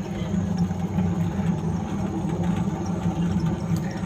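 Steady, engine-like mechanical hum from the gondola ride's drive machinery.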